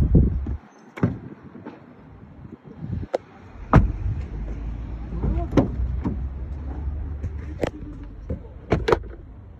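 Car door and cabin fittings of a 2024 Chevrolet Monza giving a string of sharp clicks and knocks, the first a heavier thump right at the start, as the car is opened and climbed into. Under them is low rumbling handling noise on a phone microphone.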